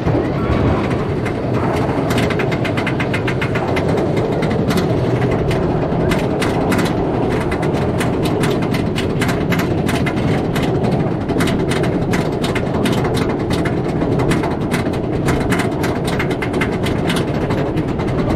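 Steady mechanical clatter and rumble of the Iron Gwazi train being pulled up the RMC coaster's chain lift hill. Rapid clicking from the anti-rollback grows dense after the first couple of seconds.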